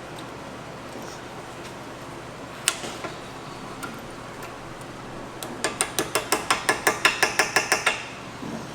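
Small hammer tapping a brake pad retaining pin into a brake caliper: one sharp click, then a quick run of about seventeen ringing metal taps, about seven a second, getting louder before stopping.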